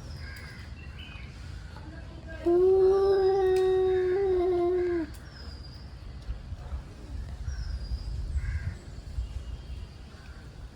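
Tomcat yowling, a threat call before a fight: one long, steady, drawn-out yowl starting about two and a half seconds in and lasting about two and a half seconds. A low rumble runs underneath throughout.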